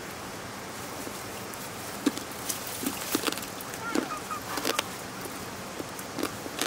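Rice being washed by hand in a metal bowl of water: wet squelching and splashing as handfuls are rubbed and squeezed, with water dripping back into the bowl. The short wet clicks start about two seconds in, over a steady background hiss.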